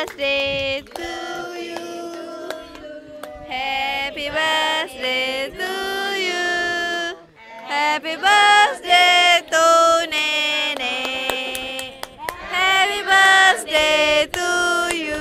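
A group of people singing a birthday song together, in sung phrases with a short pause about halfway through.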